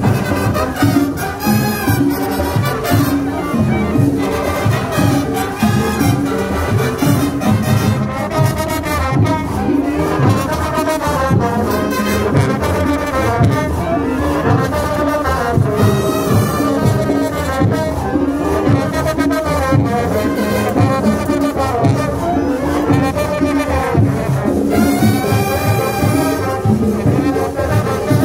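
Marching band playing live: trumpets, trombones, saxophones and sousaphones carrying a melody over a steady drum beat.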